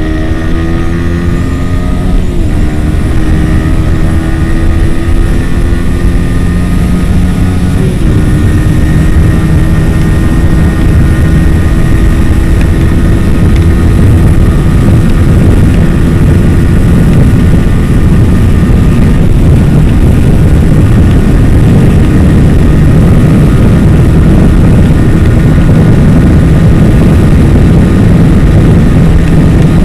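Yamaha R15 V3's single-cylinder 155 cc engine pulling hard at high speed, its note climbing with short breaks for upshifts about two and eight seconds in. It then holds a steady high-revving note, with wind rushing over the helmet microphone growing loud in the second half.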